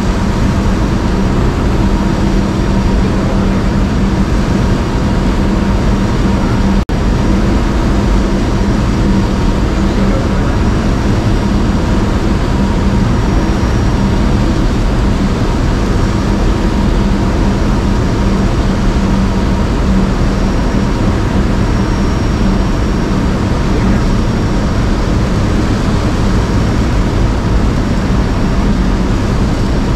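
Light aircraft's piston engine and propeller running at a steady drone, with steady low tones throughout. The sound cuts out for a split second about seven seconds in.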